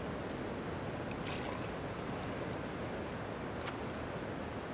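Steady wash of ocean surf, with a couple of faint light clicks about a second in and again near the end.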